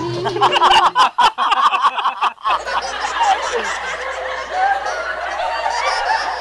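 Loud, exaggerated sobbing and wailing in broken, gasping bursts with sliding pitch, after a held note of the music stops shortly after the start.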